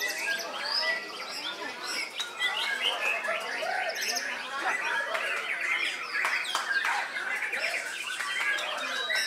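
Many caged songbirds singing at once, white-rumped shamas among them: a dense, unbroken tangle of overlapping whistles, chirps and trills.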